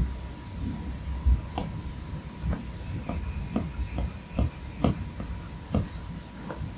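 Apple Pencil tip tapping and stroking on an iPad Pro's glass screen: a string of short light taps, one or two a second, over a low rumble of hand movement.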